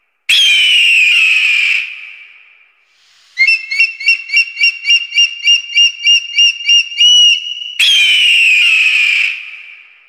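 Eagle calls: a long, high scream that falls slowly in pitch, then a rapid run of about a dozen high chipping notes at roughly three a second, then a second long falling scream.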